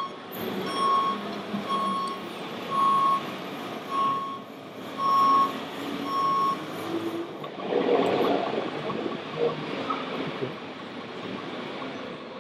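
Reversing beeper of a radio-controlled logging truck's sound module: about seven high beeps roughly a second apart, stopping about six and a half seconds in, over steady background noise. A short noisy burst follows about eight seconds in.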